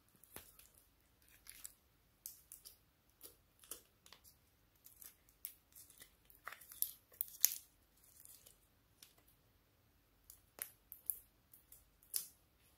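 Slime being pulled and scraped by hand out of a clear plastic container and pressed into a dish of foam beads: irregular small clicks, crackles and sticky pulls, a few to a second, with quiet gaps around a second in and nearer the end.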